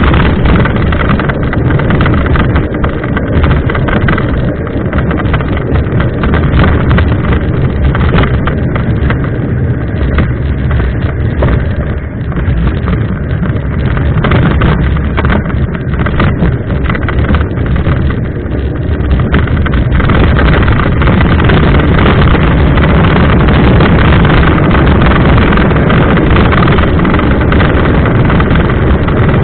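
Wind buffeting the microphone and the rumble of a mountain bike rolling over a rough trail: a loud, continuous noise full of small knocks and jolts, getting steadier and louder about two-thirds of the way through.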